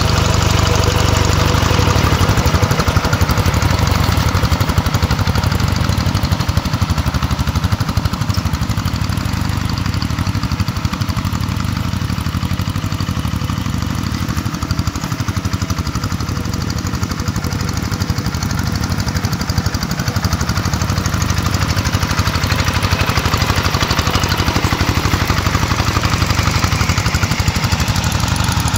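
Single-cylinder diesel engine of a two-wheel hand tractor running steadily under load as it pulls a plough through dry soil. The sound grows a little fainter in the middle and louder again near the end.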